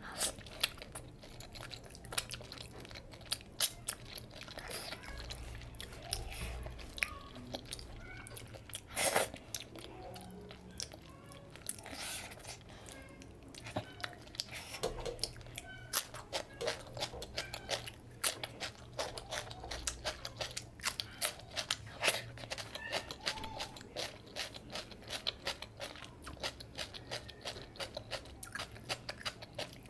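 Close-miked eating sounds: a person chewing and smacking their lips while licking curry off their fingers, making a dense, irregular run of sharp clicks and smacks.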